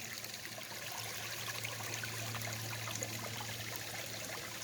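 Water from a garden pond's pump-fed waterfall trickling and splashing over rocks, steady throughout, with a low steady hum underneath.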